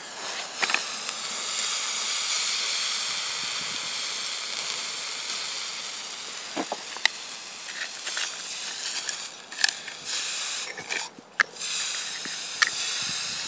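Water on a hot, shorted old car battery hissing and sizzling into steam, loudest about two seconds in and slowly dying away. In the second half, scattered sharp crackles and pops.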